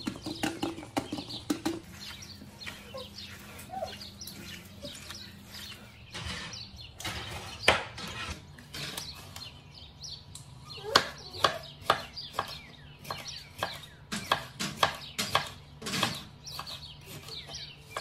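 Kitchen knife cutting a red bell pepper on a wooden cutting board: a run of sharp chops, several a second, thickest and loudest in the second half.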